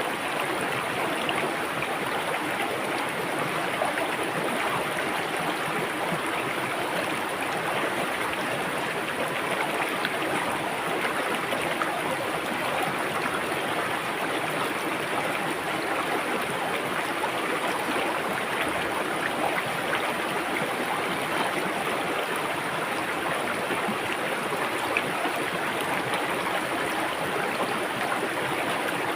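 River water flowing steadily, an unbroken rushing with no pauses or changes.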